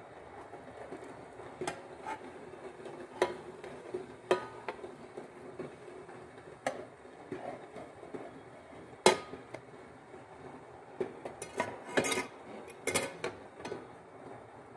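A slotted spatula knocking and scraping against a nonstick frying pan while turning pancakes: scattered clicks and taps, the loudest about nine seconds in and a quick run of them near the end.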